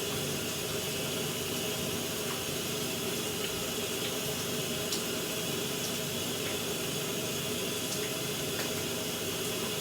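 Shower spray running steadily, with a few faint ticks here and there.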